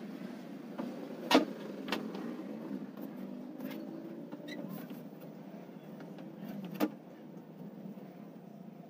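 A thin plywood sheet being handled and laid onto a plywood cabinet frame: a few sharp knocks and taps, the loudest about a second and a half in and another near the end, over a faint steady low hum.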